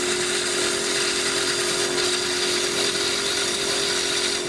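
Wood lathe running with a bowl gouge shear-scraping the inside of a wooden stave drum shell, taking a very fine shaving: a steady hiss of cutting over the lathe motor's constant hum.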